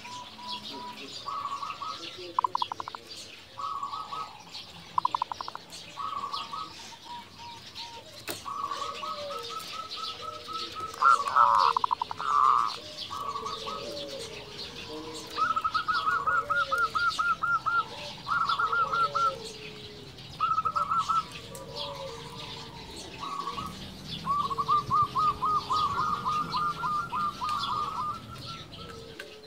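Zebra doves (perkutut) cooing: repeated phrases of rapid staccato trilling notes, some short and some held for a few seconds. Behind them a softer, lower coo repeats every second or two, with faint chirps of small birds.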